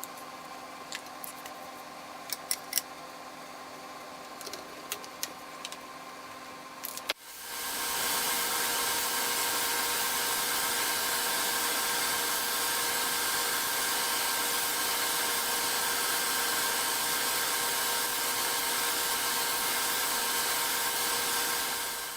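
A few light clicks and knocks, then about seven seconds in an electric power tool is switched on, quickly reaches full speed, and runs steadily at an even pitch until it is switched off near the end.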